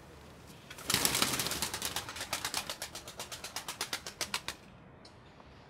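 Pigeons' wings flapping: a quick run of wingbeats, about eight a second, that starts suddenly and loudest about a second in and cuts off about four and a half seconds in.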